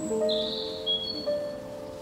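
Background music of held, layered notes that change every half second or so, with a few short high chirps over it in the first second.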